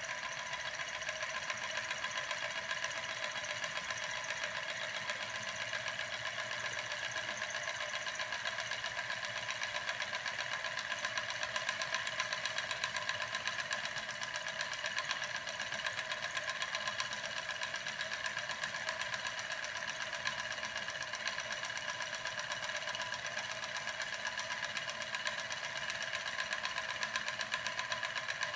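Homemade steam engine, a syringe piston driving a CD flywheel, running steadily with a fast, even mechanical clatter.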